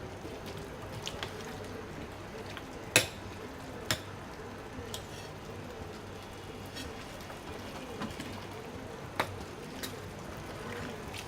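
Spoon stirring boiled chickpeas into thick masala gravy cooking in a pot, with a few sharp clinks of the spoon against the pot.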